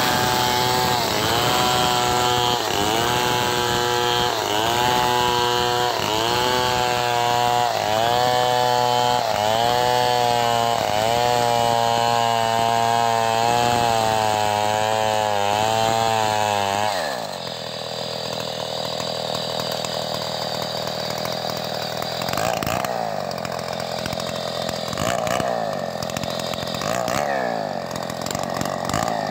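Two-stroke chainsaw ripping lengthwise through a melinjo log at full throttle, its engine note sagging about once a second as the bar is pushed into the cut. About two-thirds of the way through, the engine speed drops sharply, then rises and falls a few times near the end.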